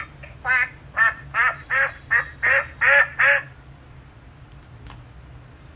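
Recorded duck quacking played through a children's sound book's small speaker: about eight quick quacks in a row, followed by a single click near the end.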